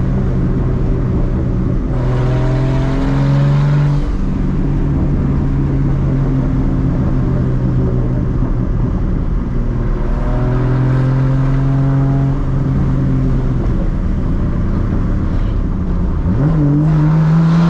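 A straight-piped big-turbo Toyota MKIV Supra straight-six running under way, heard from inside the cabin as a steady exhaust drone. It swells about two seconds in and again around ten seconds, and the revs climb near the end.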